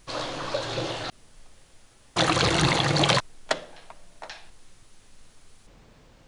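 Water running from a bathroom tap into the sink, cut off abruptly after about a second. A second, louder rushing noise lasting about a second follows, then a few sharp clicks as the shutter button of a Polaroid Pronto! camera is pressed.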